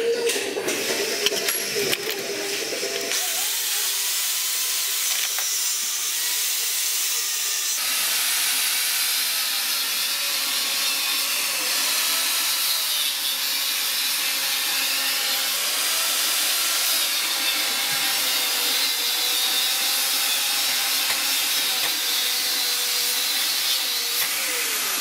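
Steady hiss of compressed air from the air supply of a homemade single-cylinder model engine, growing stronger a few seconds in, with a faint wavering whine underneath.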